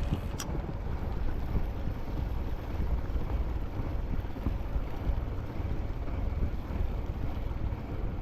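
Steady low rumble of wind on the microphone aboard a boat at sea, with a short click about half a second in.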